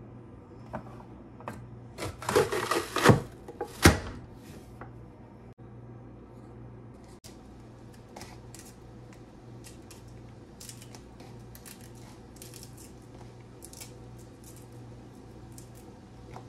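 Red onion pressed through a press-down vegetable chopper's grid blade: a crunching push about two seconds in and a sharp snap of the lid just before four seconds. Faint clicks and rustles of chopped vegetables being handled follow, over a low steady hum.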